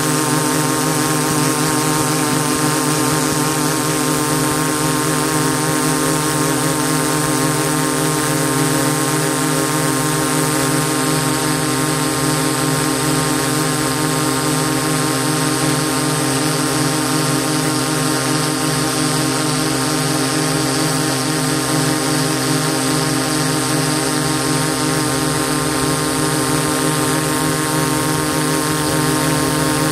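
DJI S800 hexacopter's six electric motors and propellers humming steadily in flight: a layered drone whine of several steady tones that waver slightly, over a constant hiss.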